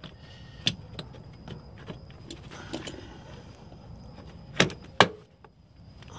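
Speaker cover being handled and fitted back into place: light rustling with a click about a second in, then two sharp snaps or knocks close together near the end as it is pressed home.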